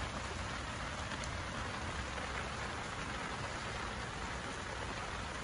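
Steady rain falling on a tent, heard from inside as an even hiss.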